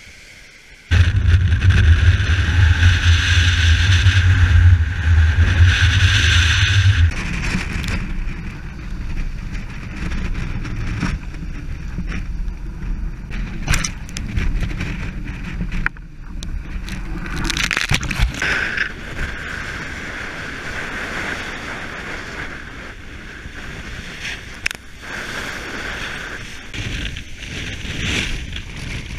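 Water rushing and splashing along the hull of a sailboat heeled and driving hard under sail, with wind buffeting the microphone. It jumps loud about a second in, with a heavy low rumble for the first several seconds before settling into a steady rush.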